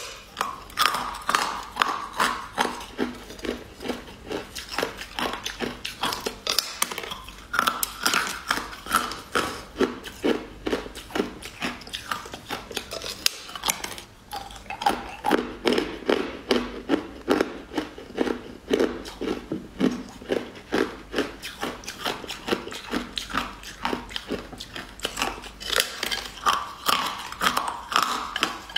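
Pink frozen ice cubes in a keyboard-shaped block being bitten off and chewed: a steady string of crisp cracks and crunches, with a short lull about halfway through.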